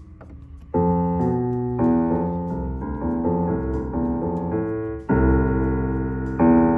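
Roland FP-30X digital piano played in chords, starting less than a second in and changing about every half second to a second, with a loud low chord struck about five seconds in and another near the end.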